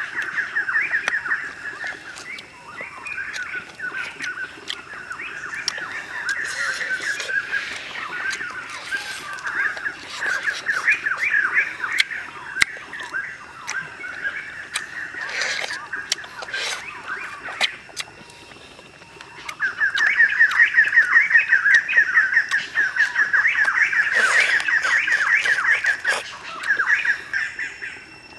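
Night-time animal calls: rapid, high, pulsing trills that come in bursts and grow loudest about two-thirds of the way in, with scattered sharp clicks and crunches from chewing grilled duck.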